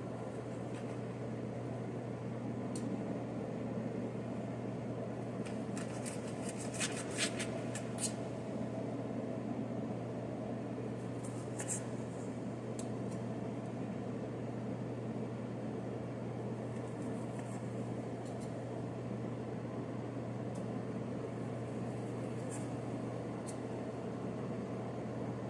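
Steady low hum of a kitchen appliance's fan motor running, with a few light clicks and clinks about 7 and 12 seconds in.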